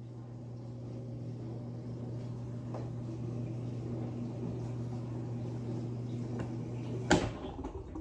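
Dishwasher running with a steady low hum, cut off by a sharp click of the door latch about seven seconds in.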